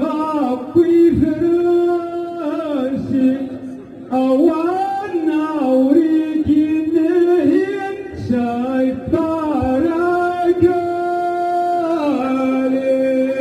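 Ahwach chorus: a line of men singing together in long, held melodic phrases that glide between notes, with a brief break about four seconds in.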